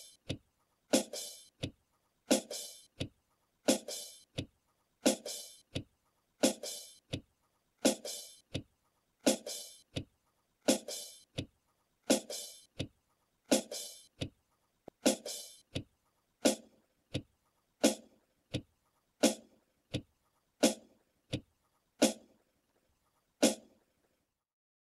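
Clock ticking in a slow, even tick-tock, about three strokes every two seconds, alternating louder and softer, each stroke with a short ringing tail; it stops a little before the end.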